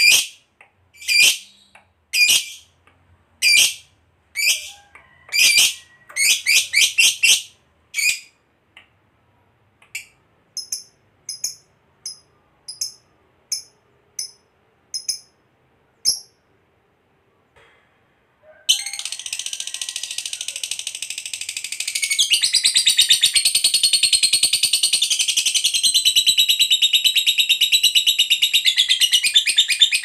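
Lovebird calling, first with sharp shrill chirps about once a second that quicken into short runs, then softer chirps. About 19 seconds in it breaks into a long unbroken rapid chattering trill, the 'ngekek panjang' that lovebird keepers train for, which gets louder a few seconds later.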